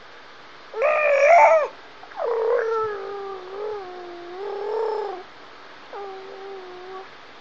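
A baby gurgling and cooing: a series of drawn-out, pitched vocal sounds that slide up and down. The loudest comes about a second in, a long wavering one follows from about two to five seconds, and a short one comes near the end.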